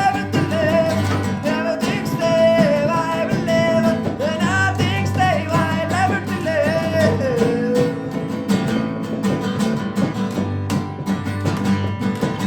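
Live acoustic band music: strummed and plucked guitars, bass and percussion, with a wavering lead melody over roughly the first seven seconds that then drops out while the band plays on.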